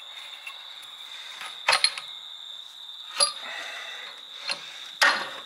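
A handful of sharp metallic clicks and knocks, spaced roughly a second apart, from hands working the fuel injector rack linkage on a Detroit Diesel 8V71 two-stroke engine with its cover off, checking whether the rack moves freely after years unstarted.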